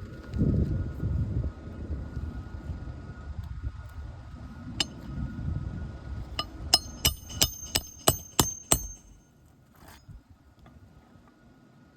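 Hammer striking a roof snake tool to drive a roofing nail through the nail strip of a replacement asphalt shingle: one blow about five seconds in, then a quick run of about eight ringing metal-on-metal strikes.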